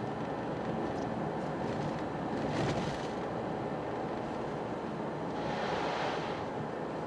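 Toyota GR Yaris driving on a road of melting snow on studless winter tyres: steady road and tyre noise with engine hum, swelling twice into a brief hiss, about two and a half seconds in and again about five and a half seconds in.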